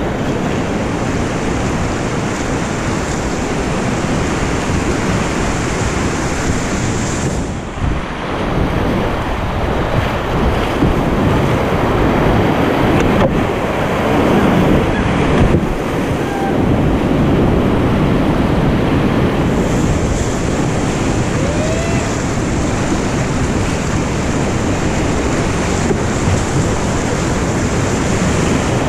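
Whitewater rapids rushing loudly and steadily around a canoe running down them, with a brief dip in the noise about eight seconds in.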